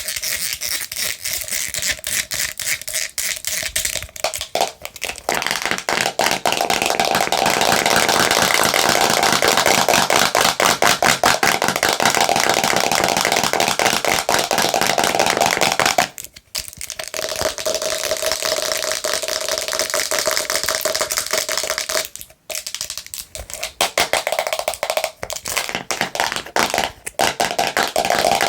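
Long fingernails tapping and scratching fast and hard on a slime container, a dense stream of clicks with two short breaks.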